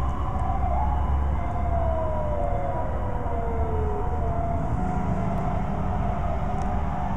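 Fire truck sirens sounding, with one siren tone sliding slowly down in pitch for a couple of seconds in the middle, over a steady low rumble of engines and traffic.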